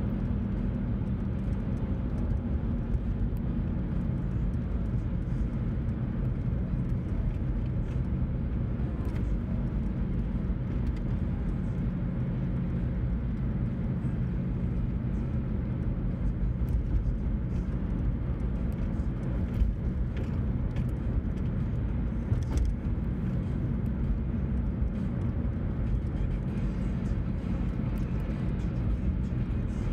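Steady low road and engine noise of a car driving at cruising speed, heard from inside the cabin.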